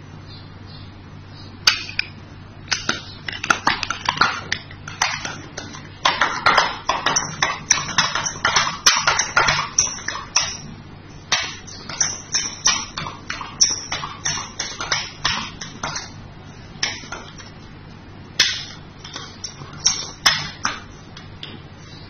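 Handpresso hand-pumped portable espresso maker being pumped by hand to build pressure: quick repeated pump strokes, about two or three a second, with a few short pauses.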